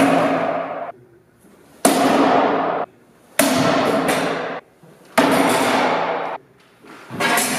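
Sword blows striking a wooden plank round shield: four sharp hits about two seconds apart, each ringing and dying away over about a second in a hard, echoing room.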